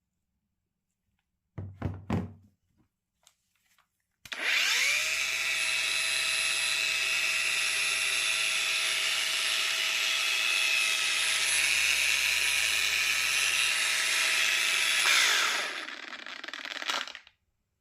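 Parkside Performance PWSAP 20-Li D4 cordless brushless angle grinder: a couple of clicks, then about four seconds in the motor spins up quickly to a steady high whine. It runs for about eleven seconds, then winds down after switch-off.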